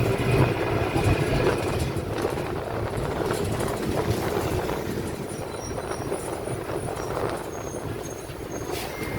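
Agrale MA 15.0 bus heard from inside while under way: the differential drones very loudly over engine and road noise. A steady whine is strongest for the first two seconds, then eases, and a few short high-pitched squeaks come in the second half.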